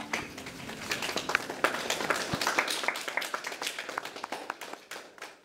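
Audience applauding, many hands clapping densely, fading away near the end.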